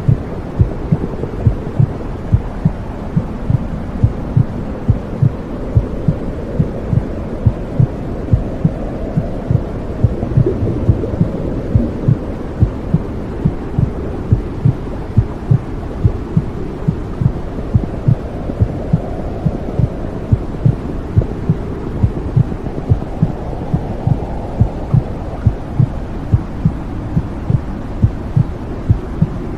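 Womb sound for soothing a baby: a steady heartbeat, about one and a half beats a second, over a continuous low whooshing hum.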